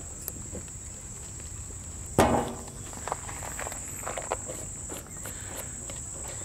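Crickets trilling steadily. About two seconds in there is a sharp knock with a brief ring, then a few lighter clicks and taps as glass pickle jars are handled and capped with plastic lids.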